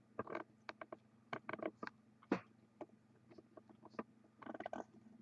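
Irregular small clicks, taps and rustles of things being handled at close range, over a steady low electrical hum.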